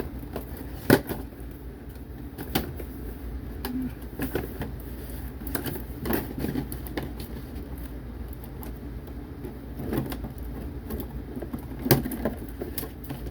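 Plastic toy parts and packaging handled by hand: scattered clicks, taps and knocks, the sharpest about a second in and another near the end.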